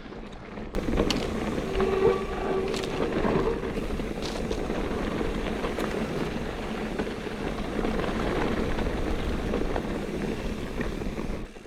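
Mountain bike riding down a rough creek trail: a steady, loud rush of tyre and wind noise that starts abruptly about a second in and drops away near the end, with a brief squeal about two seconds in.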